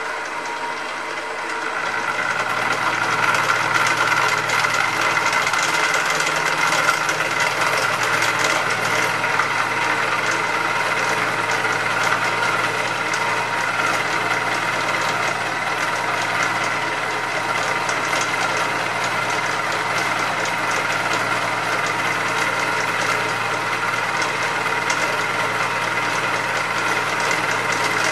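Hare and Forbes HM48 milling machine running, its large cutter taking a hand-fed cut across a metal block: a steady whine of the machine with the noise of the cut, louder from about two seconds in.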